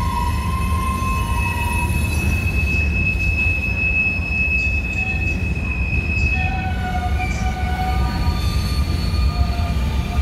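Freight train of covered hoppers and tank cars rolling past, a steady low rumble with the wheels squealing in high, drawn-out tones that come and go and shift in pitch.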